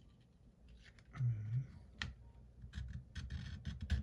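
Small clicks and scrapes of a thin pry tool working along the glued edge of an iPhone screen, moved up and down to loosen the adhesive: one sharp click about two seconds in, then a run of quick light ticks and scratches. A short low hum is heard a little after one second.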